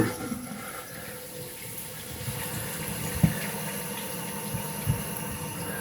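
Toilet tank refilling through its fill valve, with the water supply opened only slowly: a steady hiss of running water, with a couple of light knocks partway through.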